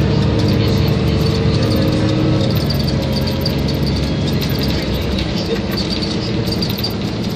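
City bus engine running under way, heard inside the cabin with steady road noise.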